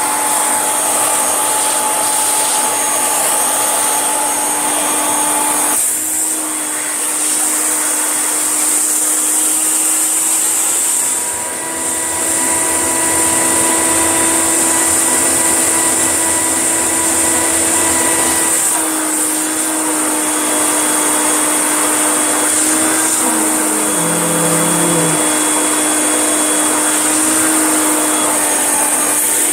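Vacuum cleaner motor running steadily at a high, hissing pitch, dipping briefly in loudness twice.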